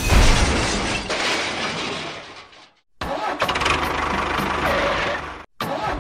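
A small engine running, in short pieces with abrupt cuts. It fades out just before the midpoint, comes straight back, and drops out again briefly near the end.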